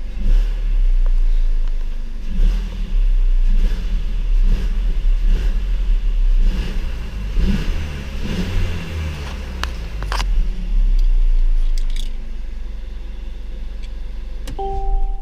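Mercedes-Benz C300's 2.0-litre turbocharged four-cylinder engine running and being revved, rising and easing several times. It settles to a steadier, lower idle about twelve seconds in. A short two-tone electronic chime from the car sounds near the end.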